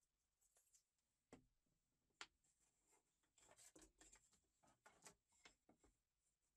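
Faint handling sounds of wooden blocks and a steel speed square being set down and shifted on a plywood board: two light knocks, then a run of small taps, clicks and rubs in the second half.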